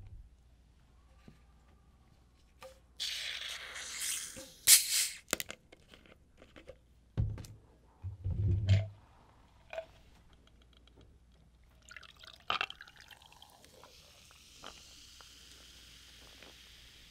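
A plastic cola bottle and a glass of ice handled on a table: a hiss, clicks and a couple of dull knocks as things are set down, then a faint steady fizz of cola poured over ice.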